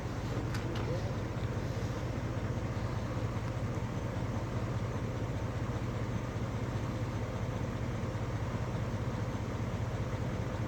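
Pickup truck engine running steadily: an even low hum that holds at one level.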